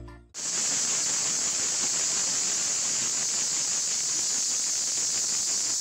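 Cicadas singing: a steady, shrill, unbroken buzz that starts abruptly a moment in as background music cuts off.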